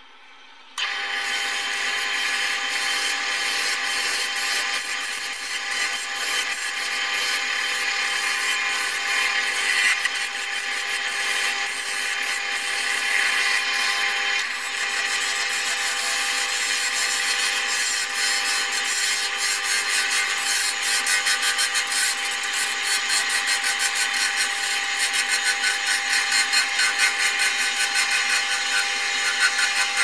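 Wood lathe spinning a karin (Chinese quince) blank while a hand-held turning chisel cuts it: a steady motor tone under the scraping of the cut. It starts suddenly about a second in.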